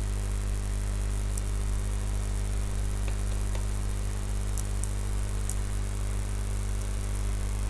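Steady low electrical hum with a layer of hiss, the recording's background noise, with a few faint clicks of keyboard and mouse.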